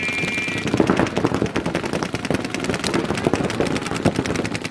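Several paintball markers firing rapid strings at once: a dense, irregular crackle of shots, many per second, overlapping throughout.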